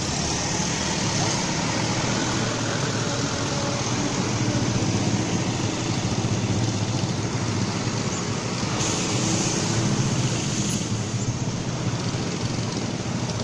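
Road traffic: motorcycle, minibus and bus engines running together in a steady mix, with a stronger hiss for a couple of seconds about nine seconds in.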